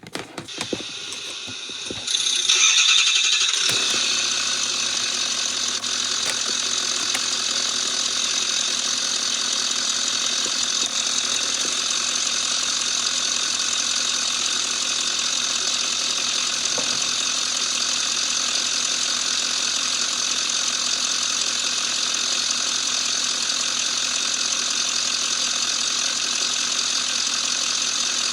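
Ambulance engine started: a few light clicks and rattles, then cranking about two seconds in that catches and settles within a couple of seconds into a steady idle.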